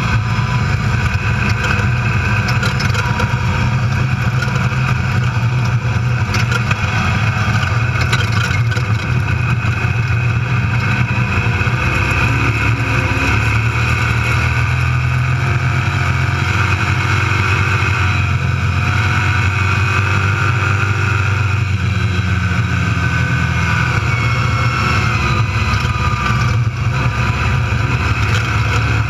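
Off-road desert race car's engine running steadily at speed, heard from inside the cab, with a constant haze of road and wind noise over the low engine drone.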